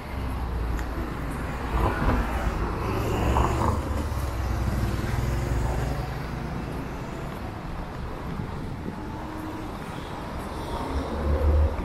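Road traffic: motor vehicles passing close by with a low engine and tyre rumble, loudest in the first few seconds and again near the end.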